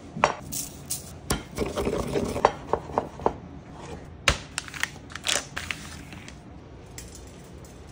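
Stone mortar and pestle crushing peppercorns: a run of sharp clicks and knocks, densest in the first three seconds and again from about four to five and a half seconds in.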